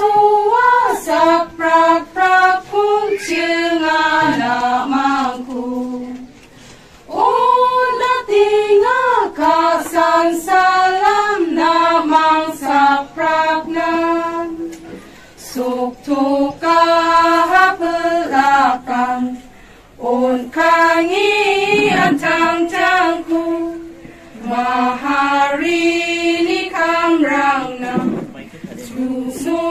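A group of women singing a song together from sheets, without instruments, in phrases broken by short pauses for breath.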